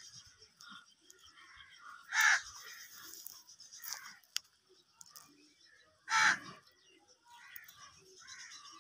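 Crows cawing: two loud caws about four seconds apart, with fainter calls in between over a steady high hiss.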